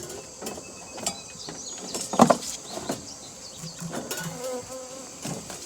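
Steady high buzzing of insects around an opened beehive, with scattered clicks and knocks as wooden hive frames are moved and set in place, the loudest knock about two seconds in.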